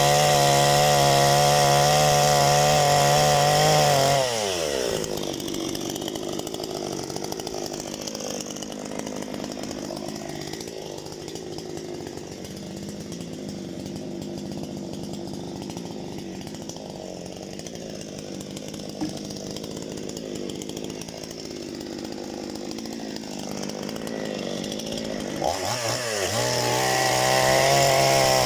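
Parma BP-058 two-stroke chainsaw at full throttle. After about four seconds the revs fall away and it idles for about twenty seconds, then it is revved back up to full throttle near the end.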